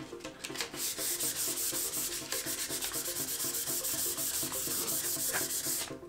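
Fine 600-grit sandpaper rubbed by hand in quick back-and-forth strokes over a wooden board: a steady scratchy hiss that starts about a second in and stops just before the end. It is the fine hand-sanding stage that smooths the wood after the orbital sander reached 220 grit.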